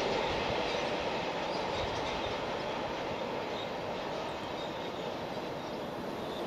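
A freight train's wheels running on the rails as it moves away, a steady rolling noise that slowly fades.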